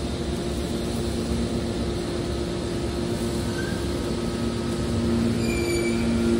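Hydraulic scrap-metal baler running: a steady hum of its motor and hydraulic pump over a rumble, growing a little louder about five seconds in, when faint high whines join it.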